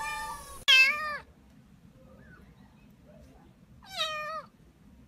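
Kittens meowing: a high meow trailing off in the first half-second, then a short, falling meow right after it, and one more short meow about four seconds in.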